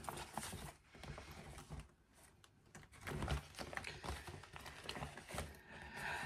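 Faint scattered clicks and rustles of small objects being handled on a desk, with a near-silent pause about two seconds in.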